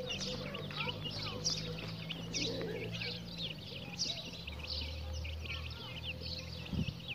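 A group of chicks peeping without pause, many short high chirps overlapping one another, over a faint steady low hum.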